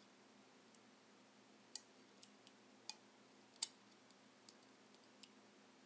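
Fingernail picking at the edge of the protective plastic film on a metal plaque. It makes faint, scattered clicks, about seven at irregular gaps, the loudest a little past the middle.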